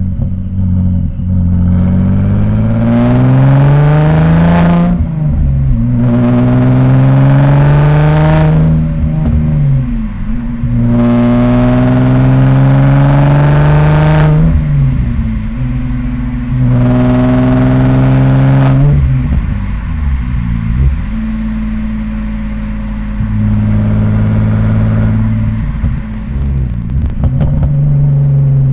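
Audi S4 B5's twin-turbo 2.7 L V6 pulling through about five moderate accelerations with short lifts between them. The engine note climbs in pitch during each, and a high turbo whistle rises with it, then falls away as the throttle closes.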